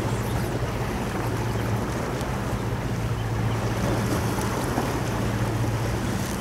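A boat's engine droning steadily, over the wash of wind and waves.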